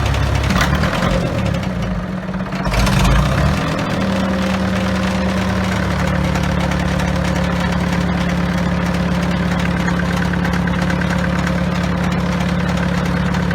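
1953 Farmall Super MD tractor's four-cylinder diesel engine running, uneven for the first few seconds with a brief surge about three seconds in, then settling to a steady idle.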